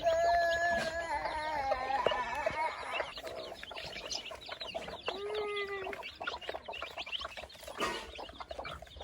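Chickens calling: a long wavering call over the first three seconds and a shorter one about five seconds in, over many high, rapid chick peeps throughout.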